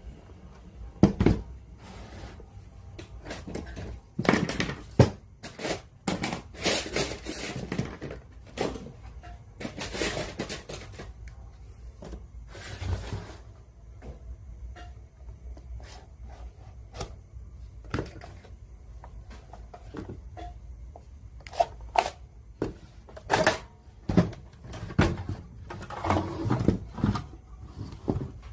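Hands and tools working on a radio cassette player being restored: irregular clicks and knocks, with several rubbing sounds of about a second each in the first half and a quick run of knocks near the end.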